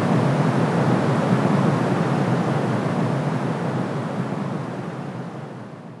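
Steady white noise, a rushing hiss heaviest in the low end, that fades out over the last three seconds.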